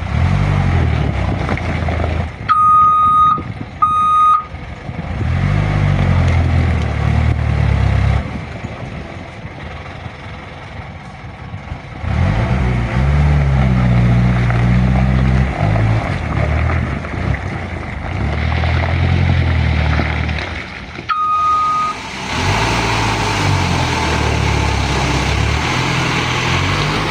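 Isuzu dump truck's diesel engine revving hard in repeated surges, each rise followed by a drop back, as the loaded truck works through mud. Three short high beeps cut in: two close together a couple of seconds in and one about 21 seconds in.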